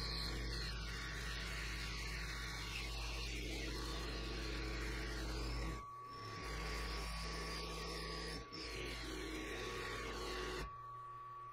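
Benchtop mill-drill running with an end mill, held in an R-8 collet, cutting a metal block: a steady motor hum and a cutting noise. The cut eases off briefly about six seconds in and again at about eight and a half, then stops near the end, leaving only the quieter hum of the spindle running free.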